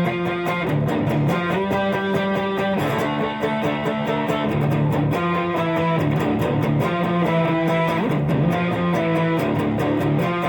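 Gibson Les Paul Custom electric guitar strumming chords in a steady rhythm, the chord changing every second or two.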